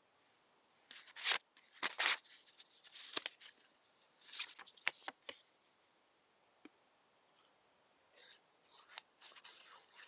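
Linesman's pliers and a sheet of paper being handled: a string of sharp clicks and papery rustles in the first half, then a few quieter ones near the end.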